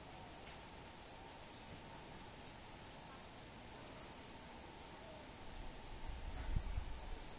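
A steady, high-pitched insect chorus. A brief low thump and rumble about six and a half seconds in.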